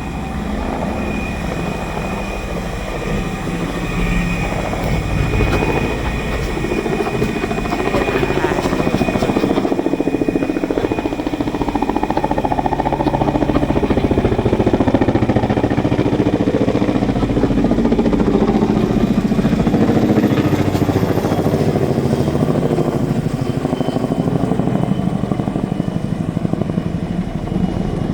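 CH-47 Chinook tandem-rotor helicopter running, a continuous rotor and engine noise with rapid pulsing. It grows louder over about the first ten seconds, then holds steady.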